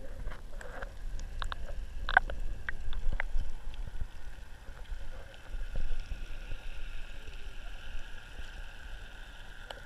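Underwater sound picked up through a GoPro's waterproof housing: a low muffled water rumble with scattered clicks and knocks. From about halfway a steady motor whine, carried through the water from a boat, comes up.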